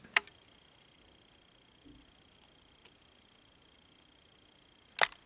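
Light clicks of plastic model-kit parts being handled: one sharp click just after the start and two near the end, with a few faint ticks between. A faint steady high-pitched tone runs under most of it.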